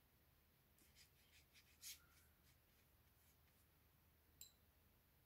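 Near silence, with a few faint rustles in the first two seconds and a single faint clink, typical of a paintbrush tapping a glass water jar, a little after four seconds in.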